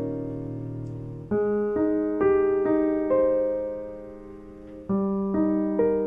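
Slow solo piano background music: single notes struck about half a second apart, each ringing and fading, with one long note left to die away around the middle before the melody resumes.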